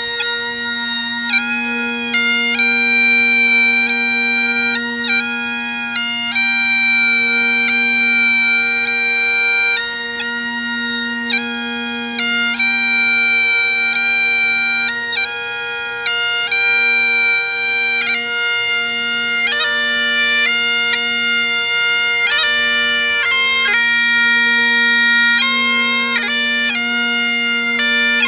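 Great Highland bagpipe playing a tune: the chanter's melody moves from note to note, with quick short grace notes, over the steady unbroken hum of the drones.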